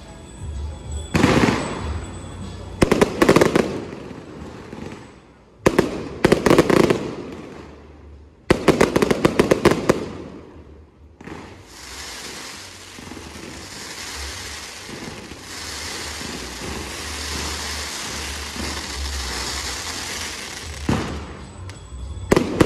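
Electronically fired fireworks: several loud bursts of bangs with dense crackling in the first ten seconds, then a steady hissing spray of fountain fireworks for about ten seconds, and more sharp bangs near the end.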